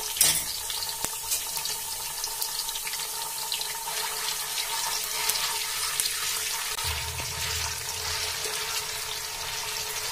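Green chillies and ginger-garlic paste sizzling and crackling in hot oil in a kadhai. In the second half, a steel spatula stirs them around the pan.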